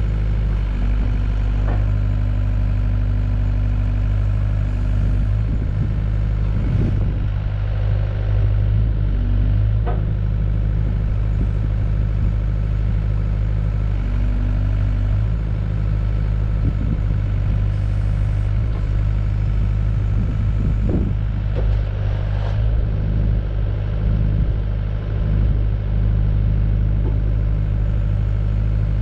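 Yanmar B55W-2 wheeled excavator's diesel engine running steadily while the hydraulic boom and bucket are worked. A higher steady hum joins for a few seconds near the start and again midway, and there are a few short knocks from the moving arm.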